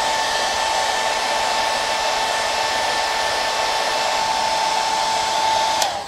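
TRESemmé hairdryer blowing steadily with a high whine over the rush of air. Near the end it is switched off with a click, and the whine drops in pitch as it winds down.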